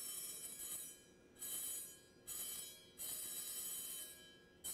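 Brass Chladni plate sprinkled with sand, made to ring by a piece of dry ice pressed against it. The pulses of CO2 gas drive it. It gives a high-pitched, many-pitched ringing that starts and stops about four times. It is just noise, not a pure tone: many patterns of vibration sound at once.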